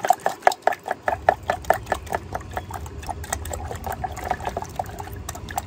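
Baking soda solution sloshing and splashing in a glass jar as a corroded electrical connector is swished around in it to clean its pins: a run of quick, irregular little splashes.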